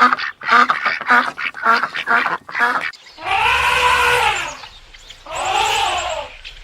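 Ducks quacking in a quick run of short calls, about four a second, for roughly three seconds. Then come two longer drawn-out calls that rise and fall in pitch.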